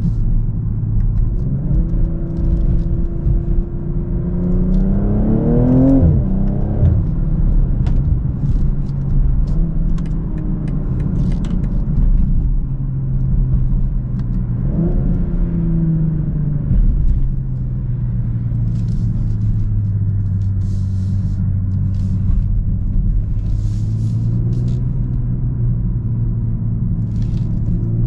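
BMW M240i xDrive's turbocharged 3.0-litre straight-six pulling under way: the revs climb for a few seconds and drop sharply with an upshift about six seconds in, rise sharply again about fifteen seconds in, then hold steady before climbing again near the end.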